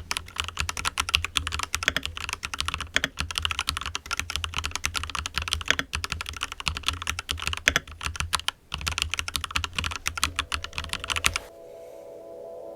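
Fast, continuous typing on a Royal Kludge RK61 Plus 60% mechanical keyboard, a dense clatter of key presses with a short pause about nine seconds in. The typing stops suddenly about eleven and a half seconds in and soft ambient music begins.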